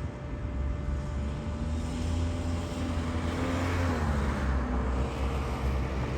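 A road vehicle passing on the street. Its noise swells to a peak about three to four seconds in, and its pitch drops as it goes by, over a steady low traffic rumble.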